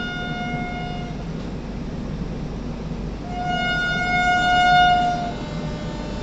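Pushpak Express locomotive's horn sounding before overtaking, over the steady rumble of the running train. A held blast stops about a second in, then a second, louder blast sounds from about three to five seconds in.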